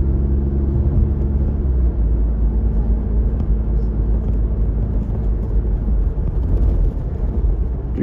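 Car road noise heard inside the cabin while driving: a steady low rumble of tyres and engine.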